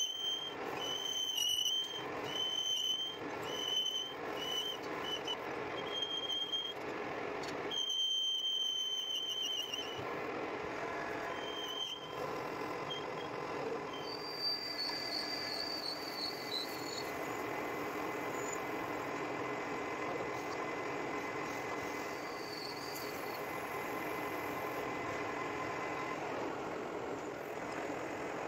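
Metal lathe turning a solid aluminum shaft: the cutting tool gives short, high squeals in quick succession over the first several seconds, then a few longer squeals, over the steady running noise of the machine.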